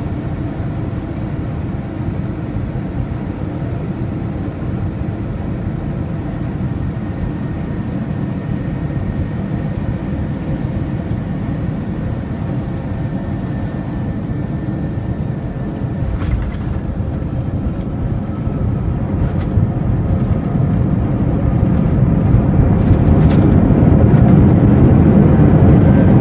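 Airbus A321 airliner heard from inside the cabin on its takeoff roll: a steady low engine rumble that grows clearly louder over the second half as thrust builds, with a few knocks and rattles.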